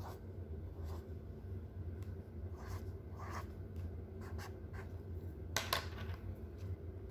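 Felt-tip pen scratching on paper in a series of short strokes as small circles and then the figure 4 are drawn, the strongest stroke about five and a half seconds in.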